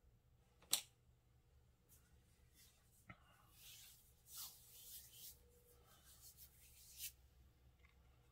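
Near silence with small handling sounds: a sharp click just under a second in, soft rustling in the middle, and another click near the end.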